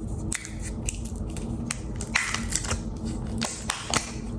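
Apple Pencil Pro packaging being opened by hand: a run of small clicks and taps with short papery rustles.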